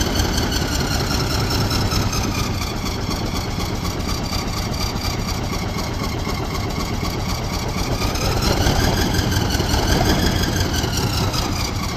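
IS-3 heavy tank's V12 diesel engine running, its revs sagging and then rising again about two thirds of the way through.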